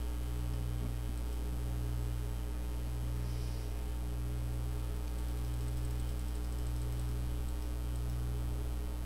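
Steady low electrical hum of mains type, swelling gently about once a second.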